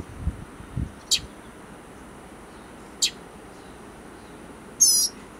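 Northern mockingbird fledgling calling: two short, sharp, high calls a couple of seconds apart, then a louder rapid burst of high notes near the end. Two low thumps in the first second.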